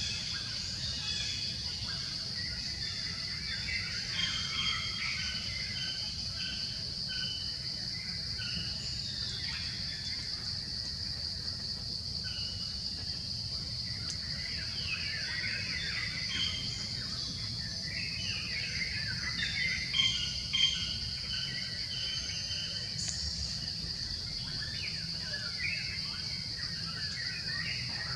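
Outdoor forest ambience: a steady high-pitched insect drone with birds chirping over it, and two short louder sounds about twenty seconds in.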